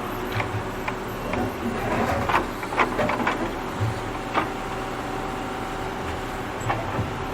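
Tractor engine running steadily while digging, with a series of sharp knocks and clanks, the thickest cluster about two to three seconds in.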